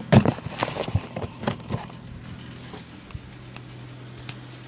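A cooling oven's fan running with a steady low hum. In the first two seconds it is overlaid by a quick run of clatters and knocks as objects are handled and set down.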